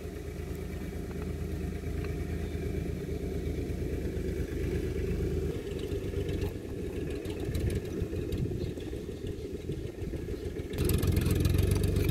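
An engine running at idle nearby, a steady low hum that gets louder and harsher about a second before the end.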